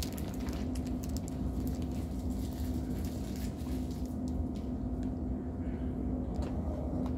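Steady low mechanical drone with a constant hum, like a running vehicle's engine heard from inside. A few faint crackles of the snack wrapper in hand come right at the start and again near the end.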